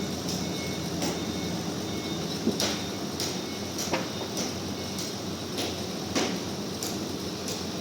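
Sawmill machinery running with a steady hum, broken by irregular sharp knocks and clatters.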